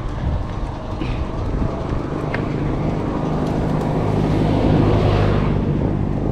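A car engine approaching and growing louder from about three seconds in, over a steady low rumble from riding on the road.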